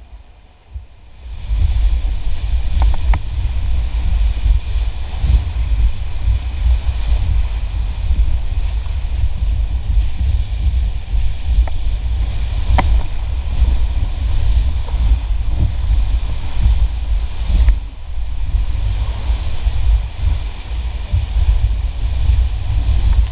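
River rapids rushing and splashing around a raft, with wind and water buffeting the camera microphone in a heavy low rumble; it comes in loud about a second and a half in, after a quieter moment. A few sharp knocks cut through the rush.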